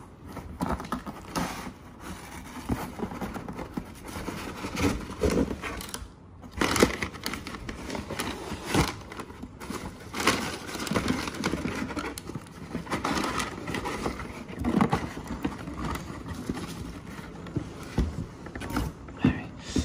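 Cardboard shipping box being opened and unpacked by hand: cardboard flaps and packing paper rustling and scraping, with irregular knocks as a cardboard shoebox is handled and lifted out.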